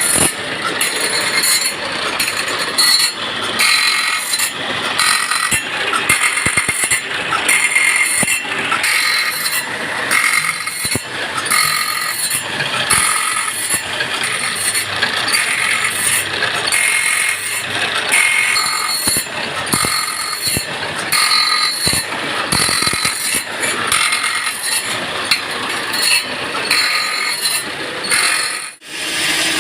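Sawmill machinery running, a continuous mechanical rattle and clatter with short whining tones that come and go. The sound drops out briefly near the end.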